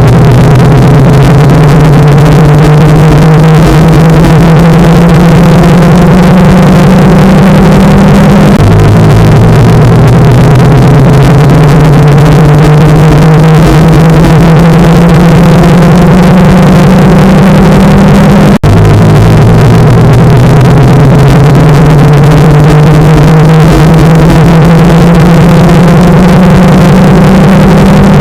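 Extremely loud, distorted droning noise with a low steady tone and higher tones that climb slowly in pitch, restarting abruptly about every ten seconds like a repeating loop.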